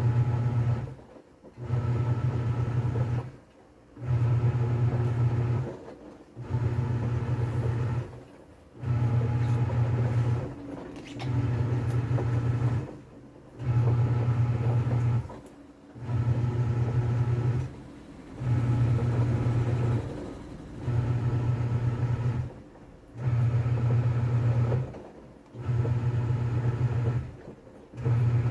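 TCL 7.5 kg top-load washing machine agitating in its wash cycle: the motor hums in short runs of about one and a half seconds with brief pauses between, about every two seconds, as it swishes the laundry back and forth.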